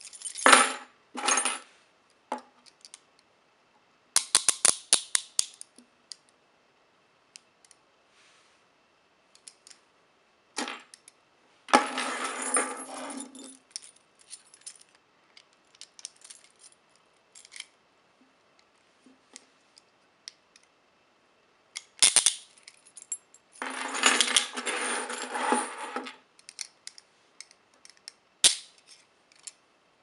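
Rigid Speedcuffs handcuffs and a bunch of keys being handled and unlocked: keys jangling and the steel cuffs clicking and rattling in short bursts, the longest two about twelve and twenty-four seconds in, with single clicks between.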